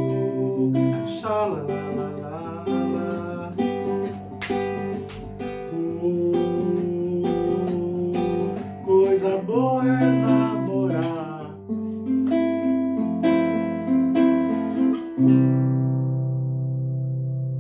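Acoustic guitar playing the instrumental outro of a song, picked and strummed, ending on a final chord struck about 15 seconds in that rings out and slowly fades.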